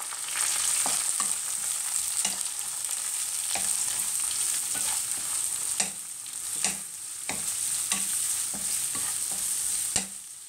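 Sliced onions, curry leaves and green chillies sizzling in hot sunflower oil in a non-stick kadai, stirred with a wooden spatula. Steady frying hiss, with short knocks and scrapes of the spatula against the pan every half second to a second.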